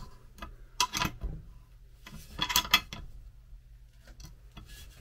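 Ratchet spanner clicking in three short runs as it tightens the nut holding a wiper spindle onto the wiper mechanism frame.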